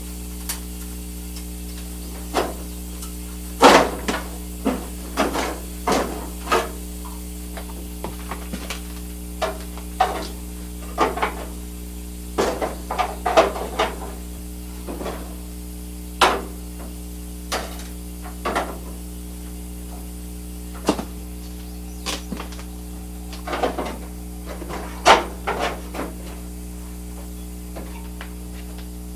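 Irregular metal clanks and knocks as a pry bar works at the 1981 Ford Bronco's steel radiator support to loosen it, over a steady low hum.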